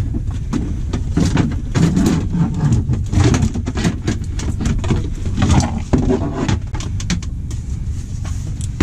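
Rustling and clicking from handling a fish and working the hook out with pliers, over a steady low rumble.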